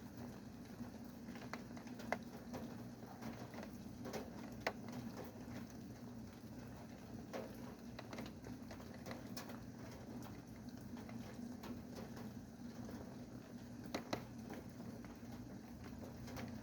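Light rain falling, with scattered sharp drips at irregular intervals over a steady low hum.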